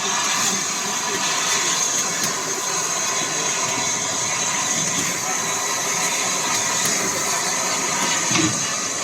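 Steam locomotive Eddystone hissing steam steadily, a continuous even hiss with no break.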